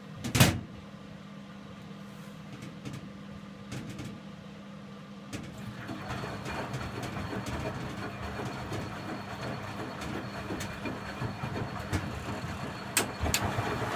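Indesit 092 washing machine running an empty Cotton 95 maintenance wash: a steady hum, a sharp click just after the start, then a louder, uneven rumbling from the machine that sets in about five seconds in and carries on.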